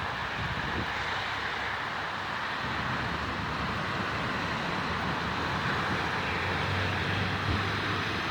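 A vehicle's engine hums low under a steady rush of water, growing louder about five seconds in as it drives through flood water.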